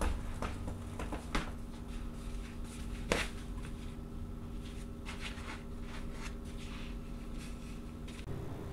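Soft slippers shuffling and stepping on a tiled floor, with scattered light taps and one louder knock about three seconds in. A steady low hum underneath stops shortly before the end.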